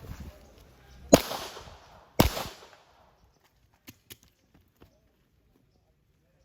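Two pistol shots about a second apart, each a sharp crack with a ringing tail, followed by a few faint clicks.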